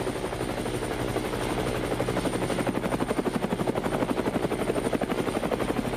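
Helicopter rotor chopping in a fast, even beat, growing a little louder about two seconds in.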